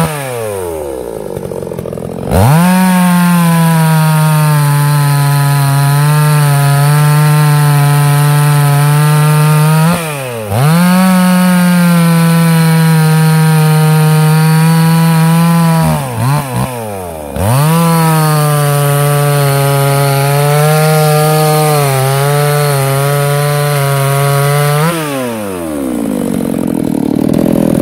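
Baumr-AG BMR-CS57 two-stroke chainsaw cutting through a log at full throttle, its engine note held steady and high during each cut. It falls back toward idle between cuts: at the start, briefly about ten seconds in, and again about sixteen seconds in with a few quick blips of the throttle. It revs back up each time, then winds down near the end.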